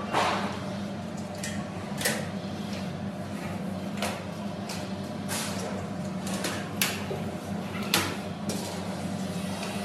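Plastic price-tag strips being pressed and snapped onto the front edges of sheet-steel supermarket shelves: a handful of sharp clicks and knocks of plastic on metal, over a steady low hum.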